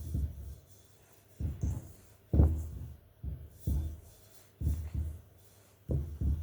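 Hands rubbing butter into flour in a mixing bowl, making dull low thumps, mostly in pairs, about one or two a second.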